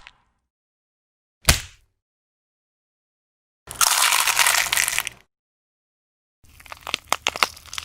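Bone-break sound effects played one after another: a single sharp crack, then about a second and a half of dense crunching, then a quick run of many sharp cracks and snaps.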